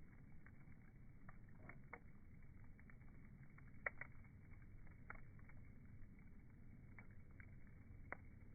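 Wood fire crackling: irregular small pops and snaps over a low rumble, with the sharpest pop about four seconds in.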